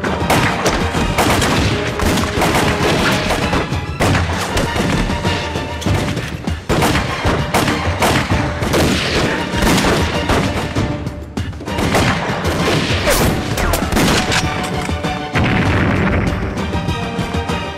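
Gunfight sound effects: repeated gunshots and booms over background music, with brief lulls about six and eleven seconds in.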